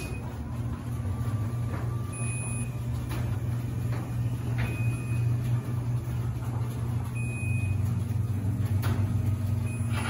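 Chamberlain B970 belt-drive DC garage door opener running slowly on its 12-volt battery backup as it closes the door: a steady motor hum, with a short high beep about every two and a half seconds, the opener's alert that it is on battery power.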